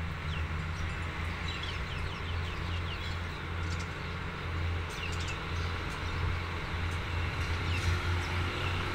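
A steady low engine hum, with small birds chirping over it in quick falling notes, a run of them early and a few more around the middle and near the end.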